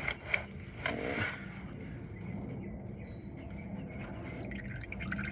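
A few short scrapes and clicks of a flathead screwdriver working a plastic oil-pan drain plug loose, followed by a steady low rush as engine oil begins to drain.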